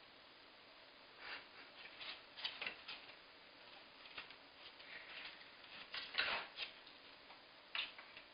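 A cat scrabbling and pawing around a wooden chair: irregular scratching and scuffling of claws on carpet and the chair's legs, in short scattered bursts.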